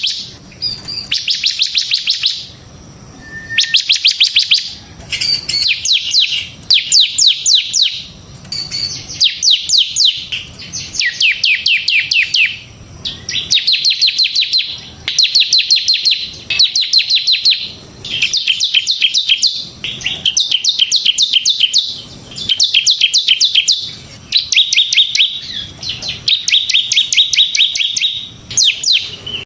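Bar-winged prinia (ciblek semi) singing loud, rapid-fire "ngebren" trills of sharp, high notes. The trills come in bursts of about a second, one after another every second or two.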